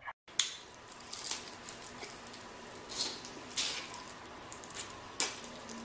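Quiet, wet mouth sounds of eating: soft smacking and sucking with scattered small clicks, as sauce is sucked off the fingers.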